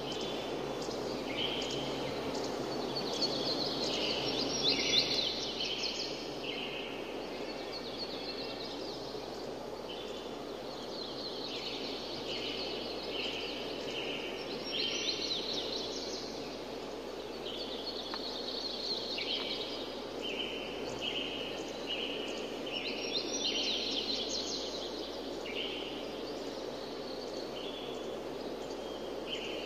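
Small birds chirping in quick repeated bursts over a steady rush of flowing water, like a nature-sound background track.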